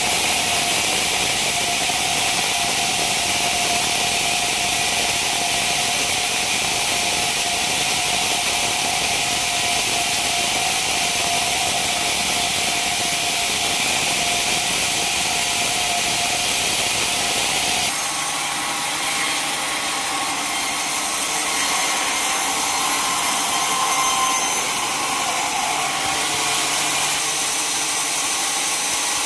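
Sawmill saw running and cutting through wood: a loud, steady hiss with a whine. About two-thirds of the way through, the sound changes abruptly to a different steady cutting noise.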